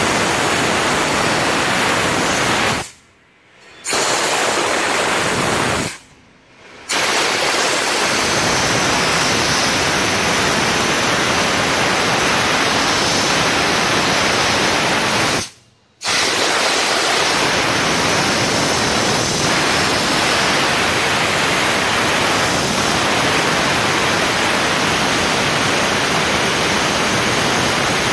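Steam cleaner nozzle jetting steam in a loud, steady hiss. The steam is shut off briefly three times: about three seconds in, about six seconds in, and about halfway through.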